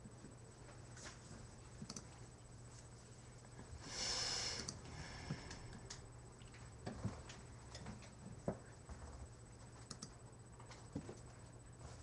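Quiet room tone with faint scattered clicks and soft movement noises. About four seconds in comes a brief breathy hiss lasting under a second.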